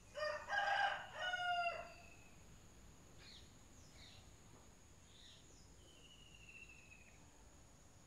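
A rooster crowing once near the start, a two-part crow about a second and a half long, followed by a few faint high bird calls.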